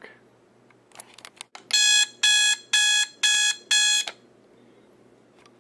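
Unmodified Advance electric alarm clock sounding its stock alarm through its small built-in speaker: five short electronic beeps, about two a second, after a few faint clicks about a second in.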